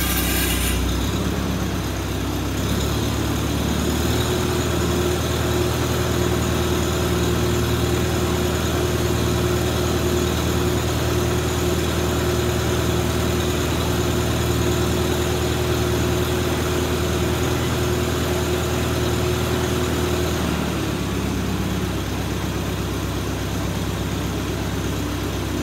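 Farmall C tractor's four-cylinder gasoline engine idling steadily after being brought back to running. Its note changes about four seconds in, and again around twenty-one seconds.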